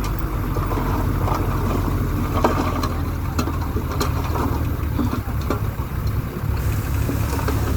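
Bulldozer's diesel engine in a steady low rumble, with scattered sharp knocks and clanks over it.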